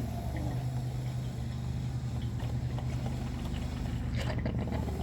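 Cuisinart Burr & Brew drip coffee maker brewing: a steady low hum, with a short hiss about four seconds in.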